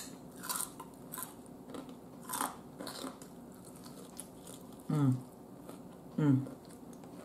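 A person biting into and chewing crispy fried chicken, with small crunches scattered through. Two short low "mm" hums come about five and six seconds in.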